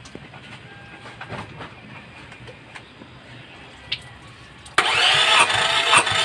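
Starter motor cranking a second-generation Toyota Camry's engine for a compression test. It kicks in suddenly about five seconds in and keeps cranking with a steady pulsing beat; before that there are only a few faint clicks.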